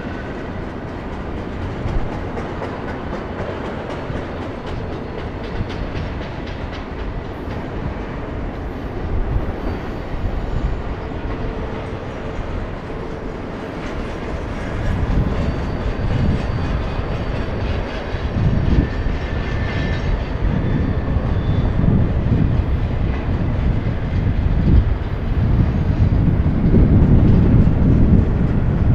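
Double-stack intermodal well cars of a freight train rolling past, steel wheels running on the rails in a continuous rumble that grows louder from about halfway through.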